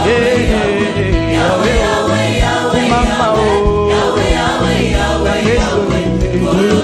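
Congolese gospel praise music sung in Lingala: several voices singing together over bass and drums.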